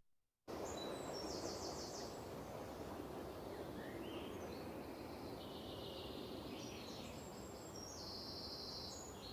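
Faint recorded outdoor ambience of birds chirping and insects trilling over a steady hiss. It cuts in abruptly after half a second of dead silence, laid over the housemates' muted conversation.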